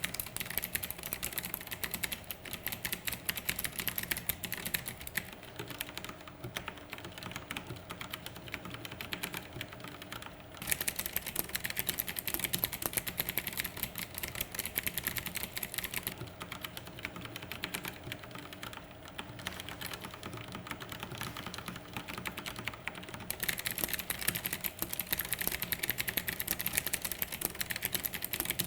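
ABKO TW1867 Bluetooth mechanical keyboard being typed on fast and continuously, a dense stream of key clicks. It grows louder and sharper for a stretch about ten seconds in and again from about twenty-three seconds in.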